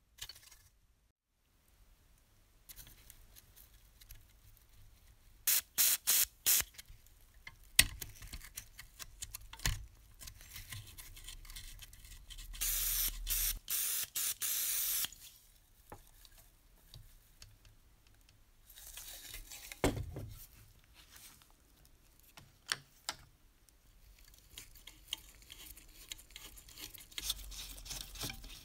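Aerosol spray can firing through a red straw nozzle into a seized model locomotive's mechanism to free it. It gives a few short hisses about six seconds in, then a steady hiss of about two and a half seconds around the middle, with clicks and rubbing from handling in between. Near the end a screwdriver scrapes at a rusty screw.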